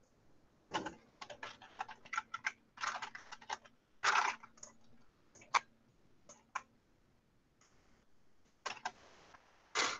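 Computer keyboard typing: short runs of keystrokes with brief pauses between them.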